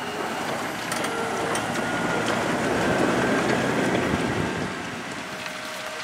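New Holland T7.270 tractor's six-cylinder diesel engine working under load while pulling a reversible plough through the soil, with a faint thin whine over the engine noise. It grows loudest about halfway through, then eases off as the tractor moves away.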